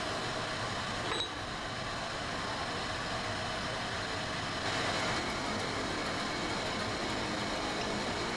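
Steady, even background noise of a large industrial workshop hall, with a single sharp metallic click about a second in.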